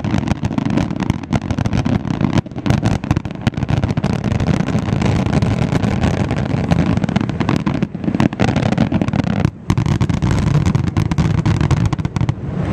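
Fireworks finale barrage: aerial shells bursting in rapid, overlapping succession, a dense crackle over a continuous deep booming rumble, with a brief drop-out about three-quarters of the way through.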